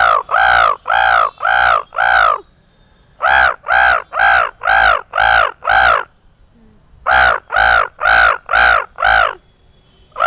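A man imitating crow caws with his voice to call crows in. The caws come in three quick bouts of five or six harsh calls each, about two to three a second, with a pause of about a second between bouts.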